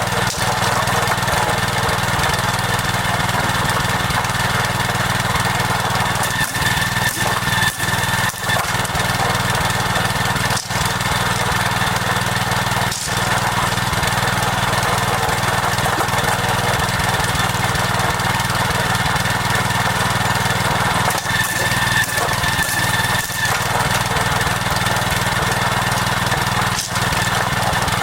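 A small engine running steadily at an even speed, with a constant high whine over a low hum.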